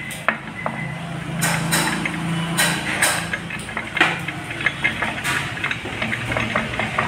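Aluminium gearbox cover of a Honda Activa 110 being worked by hand down onto its shafts and the gasketed casing: scattered metal clinks and knocks, several a few seconds apart, over a steady low hum.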